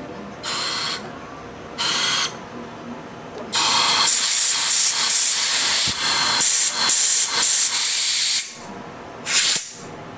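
Compressed air from a blow gun hissing through the jets and air passages of a Yamaha R6 carburetor bank, to blow them out and check that they are clear. There are short blasts about half a second and two seconds in, then a long hiss from about three and a half to eight and a half seconds with brief breaks, and one more short blast near the end.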